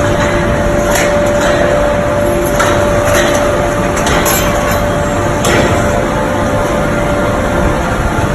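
Factory machinery running with a steady hum, broken by sharp knocks or clacks at irregular intervals, about one every one to two seconds.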